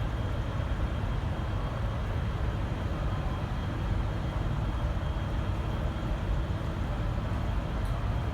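V/Line N class diesel-electric locomotive idling: a steady low rumble with a faint steady high whine.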